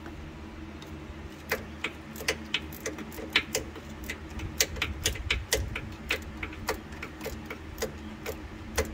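A 13 mm socket ratchet clicking in short strokes as a bolt on the oil cooler line is backed out. The clicks start about a second and a half in and come unevenly, a few a second.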